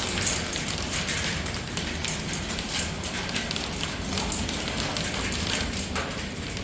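Heavy thunderstorm rain pouring down: a steady hiss of rain with many irregular small splats of drops hitting hard surfaces.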